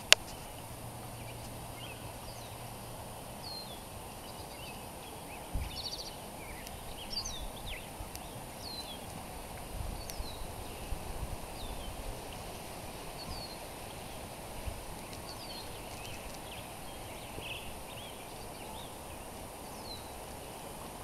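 Steady wash of Spanish Creek's water flowing over its gravel bed, with small birds giving short, high chirps on and off throughout. A few low thumps come about a third and halfway through.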